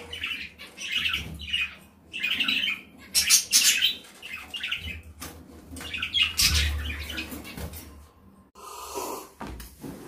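Budgerigars chirping and squawking in repeated short, high bursts, over a low rumble of handling noise at the cage; the calls cut off abruptly about a second and a half before the end.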